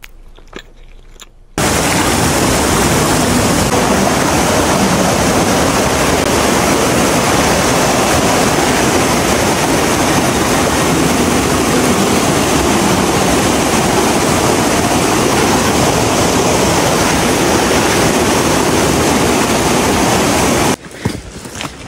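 Loud, steady rush of falling water, like a cascade close to the microphone. It starts abruptly about a second and a half in and cuts off just before the end.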